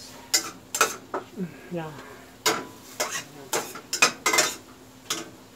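A spatula stirring onions and tomatoes in a stainless steel pot, knocking and scraping against the pot's sides in a string of sharp, irregular clacks.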